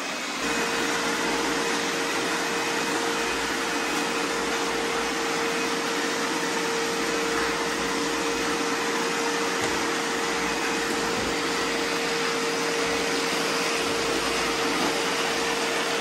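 Several robot vacuums running together, a steady whirring hum of their motors. A steady mid-pitched whine from one of them sets in about half a second in and holds.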